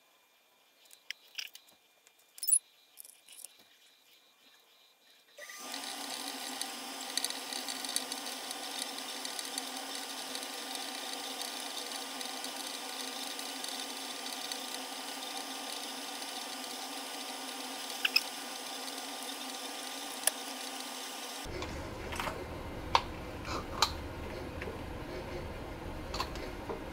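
A few light clicks of small metal parts being handled against a plastic cup, then a steady hum with several fixed tones comes in about five seconds in; a few more light clicks sound over it near the end.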